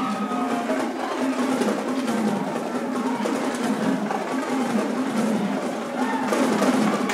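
Marching band drumline playing: snare drums rolling with crash cymbals and bass drums.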